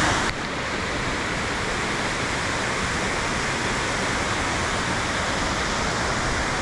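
Steady rush of a mountain stream's falling water, dropping a little in level with an abrupt change about a third of a second in, then holding steady.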